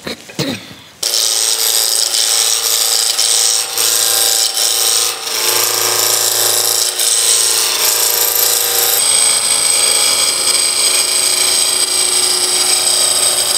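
Spindle roughing gouge cutting a square ash spindle blank spinning on a wood lathe, knocking off the corners and rounding it to a cylinder. The loud cutting noise starts suddenly about a second in.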